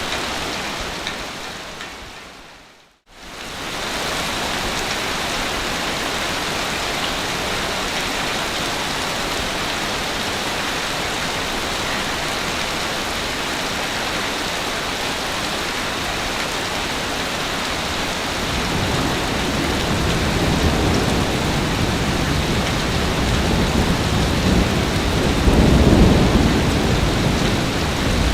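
Ocean waves on a beach: a steady hiss of surf that fades out to silence about three seconds in and returns a second later. Near the end it swells louder with a deep rumble as a bigger wave breaks.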